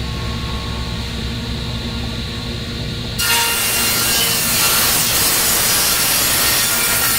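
Table saw motor running with a steady hum; about three seconds in, the tilted blade bites into a board and rips a bevel cut, a much louder sawing noise that stops sharply just as the board clears the blade near the end.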